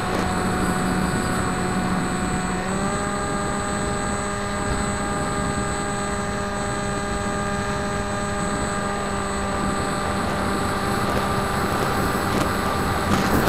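The electric motor and pusher propeller of a Bixler 2 foam RC plane run steadily in flight, a pitched drone with wind rushing past the onboard camera. The pitch steps up a little about three seconds in.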